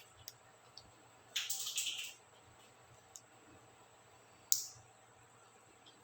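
Small plastic clicks and scrapes from laptop keyboard keycaps being handled: a short cluster about a second and a half in, and one sharp snap about four and a half seconds in.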